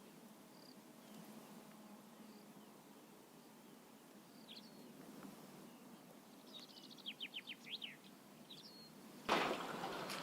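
Birds chirping and calling over a faint outdoor background, with a quick run of notes near the middle. About nine seconds in, a sudden louder rustling noise starts and keeps going.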